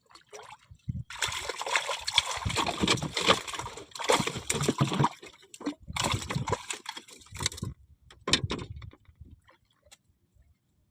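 Water sloshing and splashing in irregular bouts: a long stretch, a second shorter one, and a brief splash, then it dies away.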